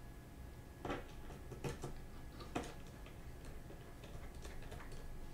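Light clicks and taps of small parts being handled as a motherboard's cover plate and tiny screws are fitted back in place, with a few sharper clicks about one, two and two and a half seconds in.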